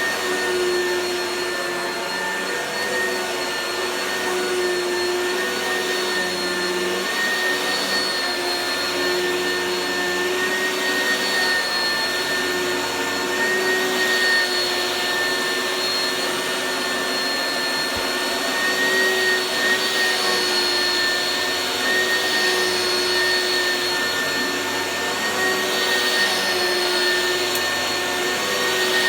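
Oreck vacuum cleaner running steadily: a continuous rush of air with a steady motor whine at several pitches, its loudness rising and falling a little.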